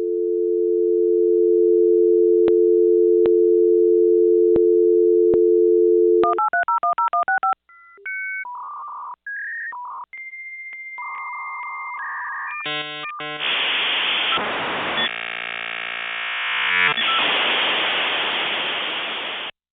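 Dial-up modem connecting: a steady telephone dial tone for about six seconds, then a quick run of touch-tone dialing beeps, then the answering modem's tone and the warbling handshake tones, ending in a long loud hiss of static that cuts off near the end.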